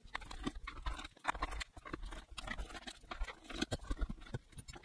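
Irregular small clicks, taps and scrapes of a hand tool and fingers on the plastic housing of a JBL Xtreme 3 speaker, as its battery cover is pried loose to reach the battery.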